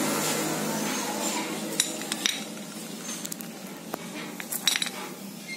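Metal parts of a Hero Honda Splendor Plus self-starter motor clinking and clicking as it is handled and its gear end cover is taken off the housing, with a few sharp clicks scattered through the second half.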